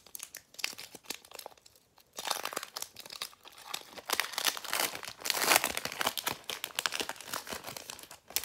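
Foil wrapper of a Pokémon card booster pack being torn open and worked apart by hand: a run of crackling crinkles and rustles, light at first and denser from about two seconds in, loudest around the middle.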